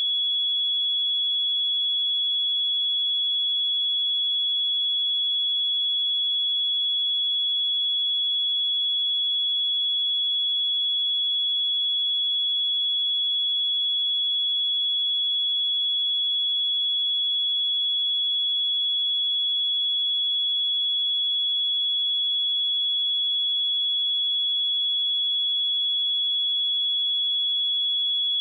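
A pure 3372 Hz sine-wave test tone, a single steady high-pitched whistle held at constant pitch and level.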